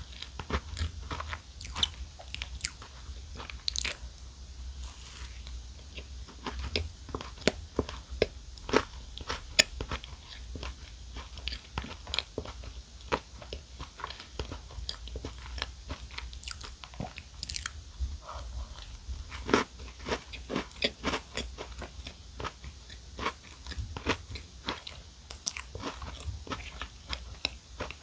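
Close-miked biting and chewing of a chocolate-coated mini chocolate muffin cupcake: an irregular run of crisp crunches and sharp clicks from the hard chocolate shell.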